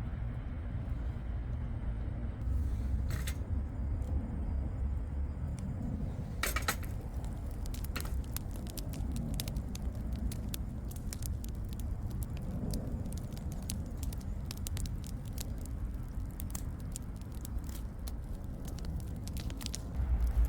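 Campfire crackling: a few isolated snaps at first, then a dense run of sharp pops and snaps from about six seconds in, over a low steady rumble.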